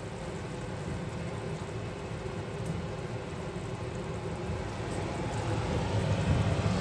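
Steady low hum and hiss of kitchen cooking noise: a range hood fan and gas burner running while a thick tamarind-ginger mixture with jaggery simmers in an iron kadai. It gets a little louder in the last couple of seconds.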